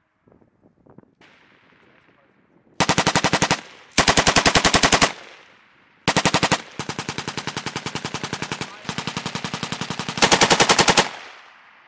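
M240 medium machine gun firing belted 7.62 mm rounds in about five bursts of rapid automatic fire, roughly a dozen shots a second. Some bursts are loud and close, others fainter, and the longest runs over two seconds.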